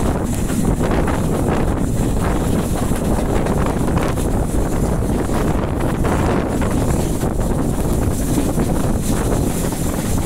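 Steady wind buffeting the microphone held out of a moving train's carriage window, over the low rumble of the train running along the line.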